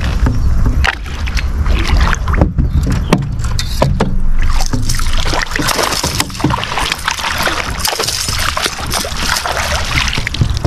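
A hooked smallmouth bass thrashing and splashing at the surface beside a boat as it is reeled in, with irregular sharp splashes over a steady rushing noise.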